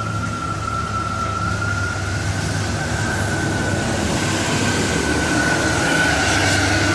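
Tour bus engine working hard on a steep climb, with a single steady high whine held over it, drifting slightly up in pitch partway through.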